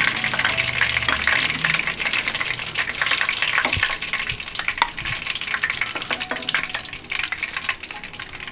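Cornflake-coated chicken pieces deep-frying in hot oil: a steady sizzle with dense crackling, and a few louder clicks about four and five seconds in.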